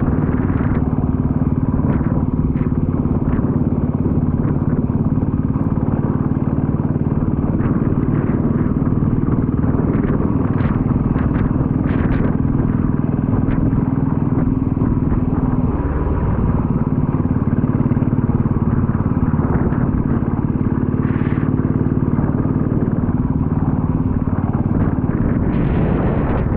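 Motorcycle engine running steadily at riding speed, heard through an action camera's built-in microphone with no external mic. The engine note dips briefly about sixteen seconds in.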